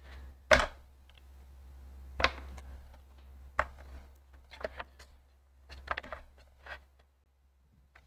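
Scattered sharp clicks and knocks of hands and tools working at a repair bench, the loudest about half a second in, over a steady low hum.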